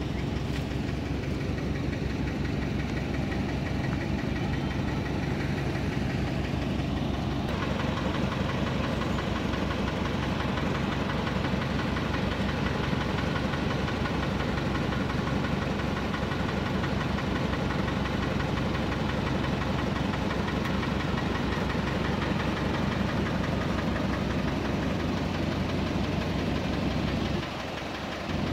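An engine idling steadily, a low hum with a fast even rattle. It drops briefly near the end.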